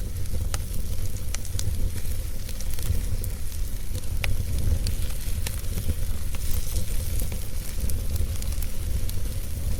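Wood fire burning: a steady hiss with scattered sharp crackles and pops, over a constant low rumble.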